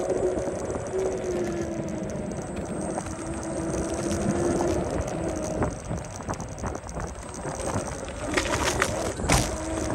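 Segway-Ninebot F40 electric scooter riding over brick pavers: a steady rumble and rattle of the tyres and frame on the bricks, with a steady motor whine that fades out about five seconds in. Sharper clicks and rattles come near the end.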